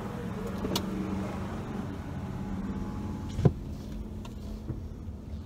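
Car idling with a steady low hum in the cabin while the driver's power window runs up, ending in a sharp thump as the glass seats about three and a half seconds in; the outside hiss drops once it is shut. A small click about a second in.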